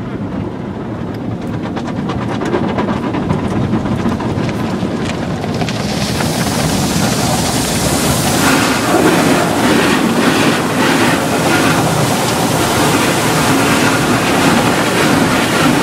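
Automatic car wash working over the car, heard from inside the cabin: a steady rush of machinery and water spray that builds gradually, turning into a harsher hiss from about six seconds in.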